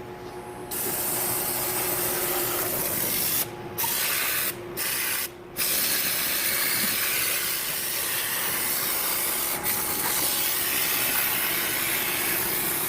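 Aerosol can of brake cleaner spraying in a long, steady hiss, stopped briefly three times a few seconds in, then spraying on.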